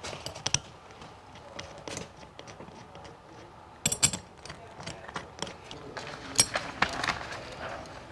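Scattered small clicks and clinks of hands fitting wiring and seal parts around an aluminium ABS modulator unit, with a quick cluster of sharp clicks about four seconds in.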